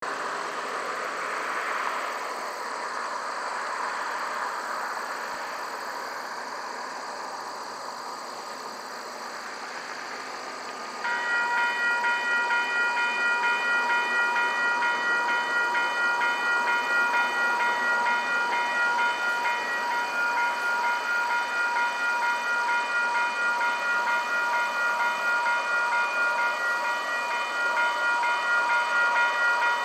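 Railway level crossing warning bell starts abruptly about 11 seconds in and rings on in a fast, steady repeating ding, signalling that a train is approaching. Before it there is only a faint, steady rush.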